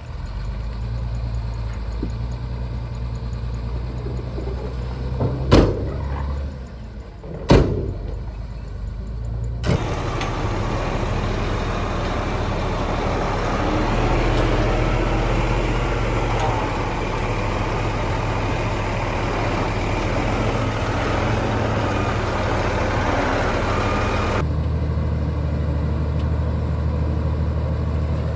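Shantui bulldozer's diesel engine running steadily, with two sharp knocks about five and a half and seven and a half seconds in. From about ten seconds in, a louder, wide rushing noise joins the engine and stops abruptly near the end.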